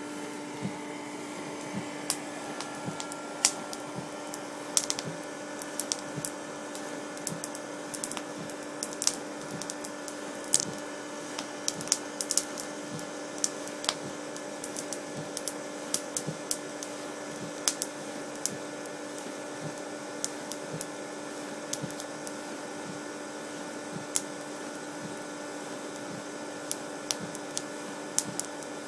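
Open fire crackling, with frequent sharp, irregular pops and snaps over a steady hum.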